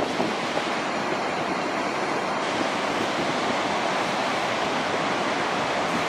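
Ocean surf breaking steadily on a beach, with wind blowing across the microphone.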